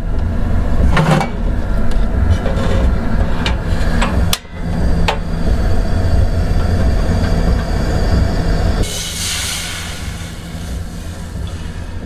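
Coleman portable butane stove being lit: a few sharp igniter clicks in the first five seconds, then the gas burner hissing from about nine seconds in, over a steady low rumble.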